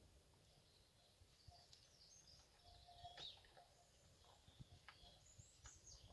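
Near silence, with faint small birds chirping now and then and a few soft clicks.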